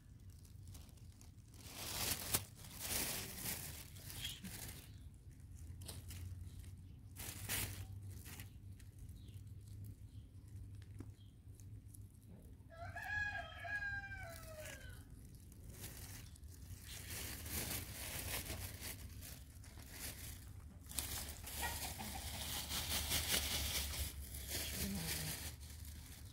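A rooster crows once, a falling call of about a second and a half roughly halfway through. Irregular noisy rustles and knocks come before and after it, and thicken near the end.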